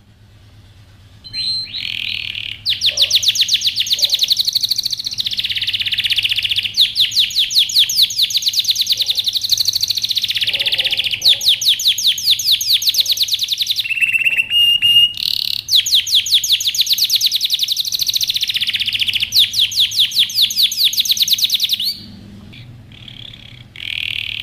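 Male domestic canary singing an excited courtship song: long runs of rapid, fast-repeated high trilled notes, broken by a few short pauses and softer near the end.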